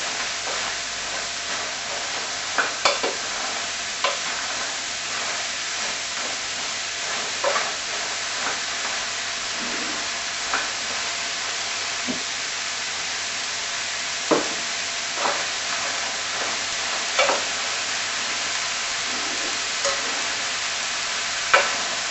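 Chopped vegetables (red onion, courgette, peppers) sizzling with a steady hiss in a stainless steel frying pan as they are quickly browned. A wooden spoon stirs them, knocking against the pan now and then.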